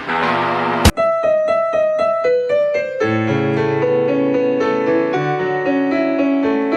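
Piano music: after a sharp click about a second in, a piano plays quick repeated single notes, about four a second, and from about three seconds in it plays held chords over a low bass line.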